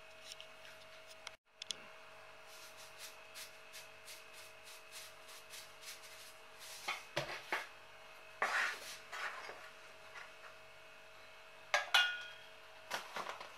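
Coconut milk boiling in a nonstick pot, its bubbles making faint quick popping over a steady low hum. A few louder clinks and scrapes of utensils against the pot come about halfway through and again near the end.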